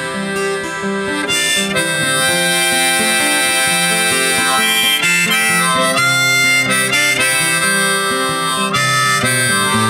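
Background music: an instrumental passage of a song, with no singing.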